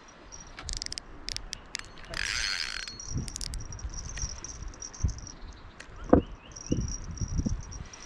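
Insects buzzing steadily in the riverside vegetation, with a few sharp clicks near the start, a short rattling burst about two seconds in, and some low knocks later, the sharpest just after six seconds.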